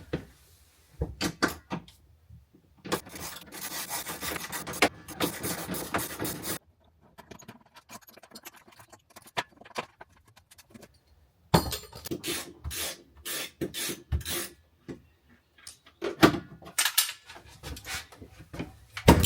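Hand-tool work removing brackets from the van's interior: scraping and rubbing with sharp knocks and clicks, in several separate stretches that start and stop abruptly.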